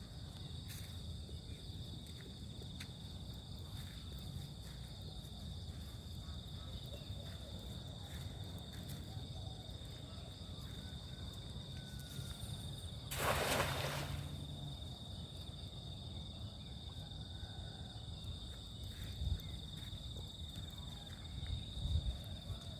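Steady high-pitched chorus of insects such as crickets over a low outdoor rumble, with one loud rush of noise lasting about a second a little past halfway through.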